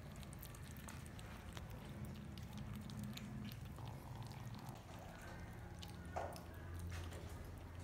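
Several kittens chewing and lapping raw minced meat from a plate: a patter of many small wet clicks and smacks. One brief louder sound about six seconds in.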